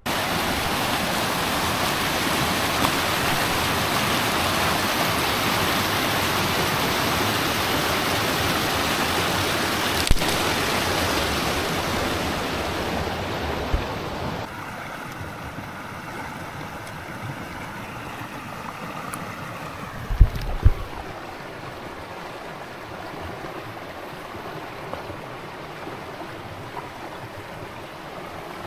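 Mountain stream water rushing steadily. It drops suddenly to a quieter rush about halfway through, with a couple of dull low thumps about two-thirds in.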